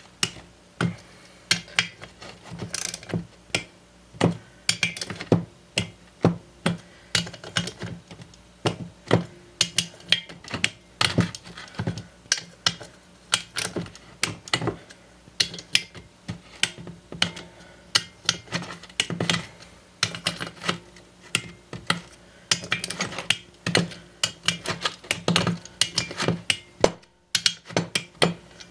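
Torque wrench ratchet clicking in repeated short runs as the cylinder head bolts of a Briggs & Stratton flathead engine are tightened down, with a brief pause near the end.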